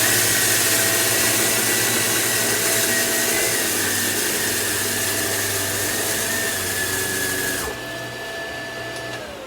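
Samsung CycloneForce upright vacuum cleaner running on a hard floor, picking up spilled rice: a steady motor whine over a loud rush of air. Near the end the rush of air drops off, and then the motor is switched off and its whine starts to fall in pitch.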